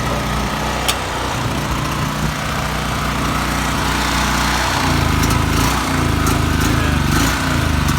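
Predator 3200 generator's engine running, steady at first; from about five seconds in its speed starts hunting, rising and falling rapidly. The owner takes the surging for dirt in the carburetor bowl.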